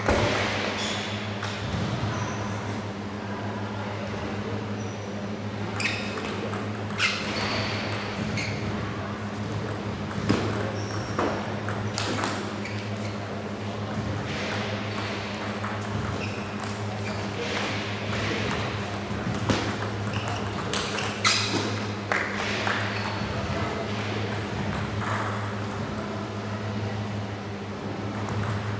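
Table tennis ball clicking against bats and table in rallies, with short pauses between points. A steady low hum runs underneath.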